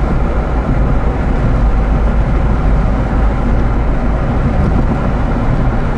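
Steady road noise and engine rumble inside a moving car's cabin at highway speed, a deep even rumble with no breaks.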